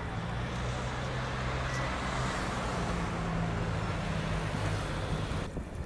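Road traffic on a city street: a motor vehicle's engine hum under the rush of passing cars, swelling about two to three seconds in. It cuts off suddenly near the end.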